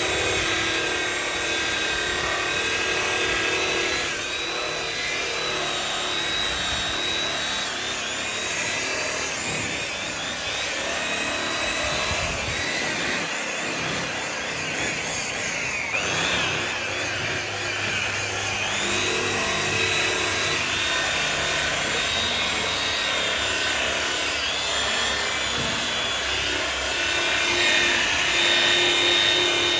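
Handheld power tool running steadily while buffing a plastic headlight lens, its motor pitch shifting up and down now and then.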